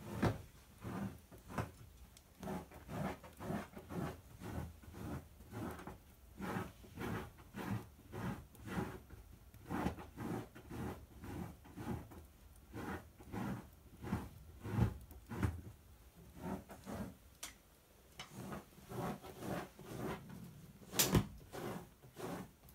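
A dog scratching at its bedding to make its bed: quick repeated scratching strokes, about two to three a second. A single sharp click sounds near the end.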